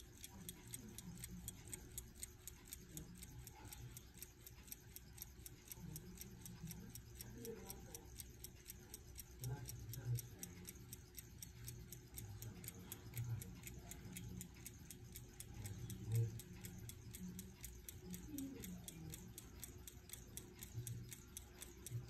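1912 Ingersoll Radiolite pocket watch movement ticking, a fast, even run of light ticks from its balance and escapement. A few soft low bumps sound under it.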